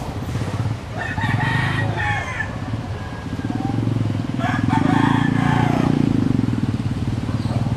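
A rooster crowing twice, once about a second in and again around the middle, over a steady low rumble.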